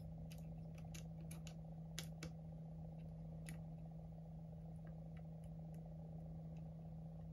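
Small sharp clicks and taps of parts and a small tool against an iPhone 11's frame as the vibration motor is fitted, quick and close together for the first couple of seconds, then only now and then, over a steady low hum.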